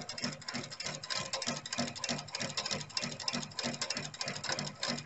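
Industrial sewing machine running fast, stitching through thick braided boat rope: a rapid, even mechanical clatter with a regular pulse several times a second.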